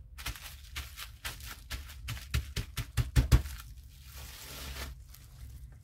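Plastic bubble wrap crinkling and crackling as hands press and rub it down over a painted gel printing plate. The crackles come in a quick irregular run, loudest around the middle, and thin out near the end.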